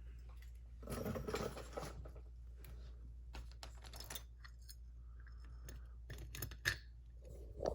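Irregular small metallic clicks and scrapes of a lock cylinder and bench vise being handled and repositioned, with a brief rustling scrape about a second in. A steady low hum runs underneath.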